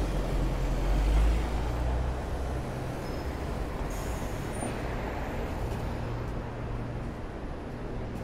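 Road traffic: a heavy vehicle's engine rumbles close by, loudest about a second in and fading after a couple of seconds, leaving steady traffic noise.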